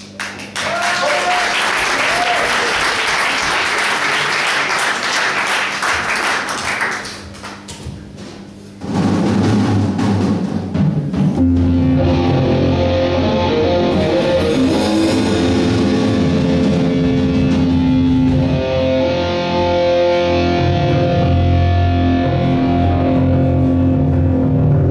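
Audience applauding for the first seven seconds or so; then, after a short lull, a rock band starts a song with electric guitar, bass guitar and drum kit playing.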